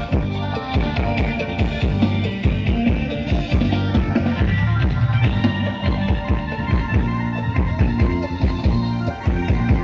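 Loud band music with drums, heavy bass and guitar on a fast, steady beat, played over a Thai parade sound truck's loudspeaker system during a sound check.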